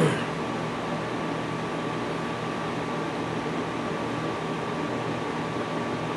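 Steady room hum and hiss from air-moving equipment, with a thin steady tone above it.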